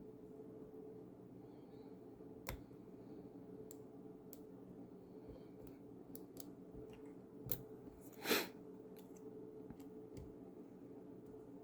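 Scattered small metallic clicks and one louder short scrape from a stainless steel disc lock being picked, its discs being worked one by one, over a steady low hum.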